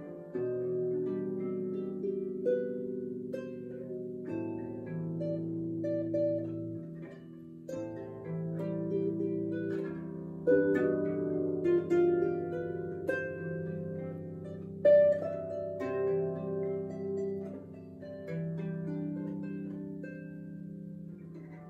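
Solo harp improvising: low plucked notes left ringing as a sustained bass while a slow melody of plucked notes moves above, with a few louder accents about ten and fifteen seconds in.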